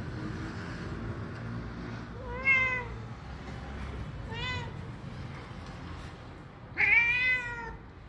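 Black-and-white domestic cat meowing three times: a short meow about two and a half seconds in, a fainter one near the middle, and a longer, louder one near the end.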